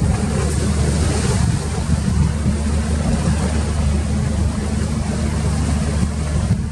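A steady, loud low rumble like a running engine, with a hiss of wind or water over it.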